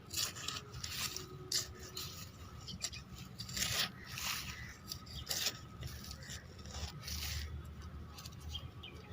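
Soil being dug through by hand or with a small tool to unearth potatoes: irregular scraping and rustling strokes.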